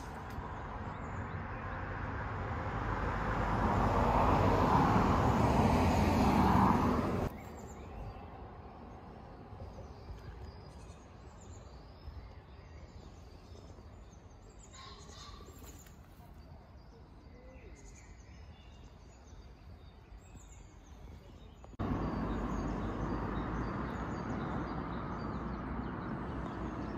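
Outdoor ambience in three stretches. First a loud rush of noise that swells, then breaks off abruptly. Then a quieter stretch with small birds chirping now and then, before the rush of noise returns suddenly near the end.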